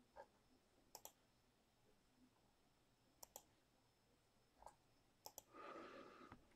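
Faint computer mouse clicks about two seconds apart, each a quick press-and-release double tick, heard about three times, with a few fainter ticks. A short soft noise comes near the end.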